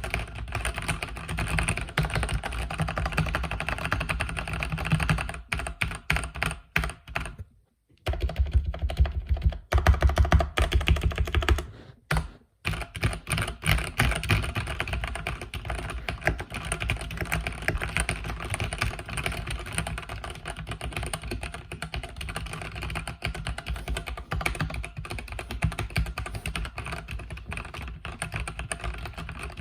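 Mechanical keyboard with red linear switches being typed on steadily: a fast, continuous run of key clicks, broken by two short pauses about eight and twelve seconds in, with heavier strokes between the two pauses.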